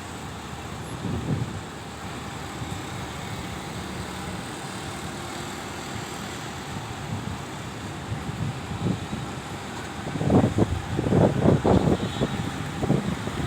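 Steady outdoor rumble of distant traffic. From about ten seconds in, irregular low thumps of wind buffeting the microphone.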